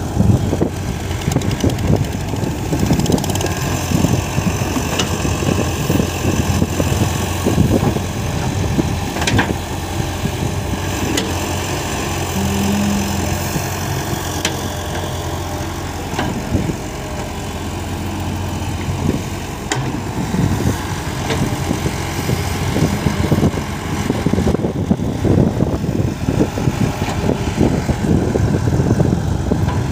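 Diesel engines of two hydraulic excavators, a Sumitomo SH120 and a CAT, running steadily with occasional knocks from the digging.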